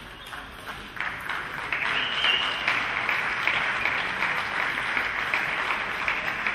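Spectators clapping at the end of a table tennis match; the applause swells about a second in and keeps up steadily.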